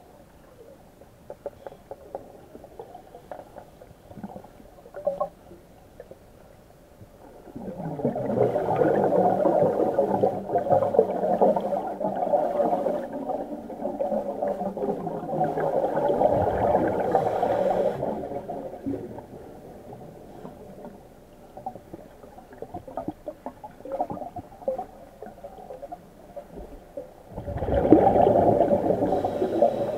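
Gas bubbling out of a diver's suit hood, heard underwater: faint clicks at first, then a long gurgling, rumbling stretch of bubbles from about eight seconds in to nearly twenty, and another burst of bubbling near the end as the diver holds a hand at the top of the hood.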